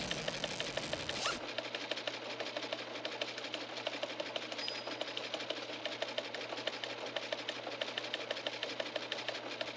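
Steady, rapid mechanical clicking, many clicks a second and very even, in the manner of a sewing machine or teletype. A brief rushing hiss is laid over it in the first second or so.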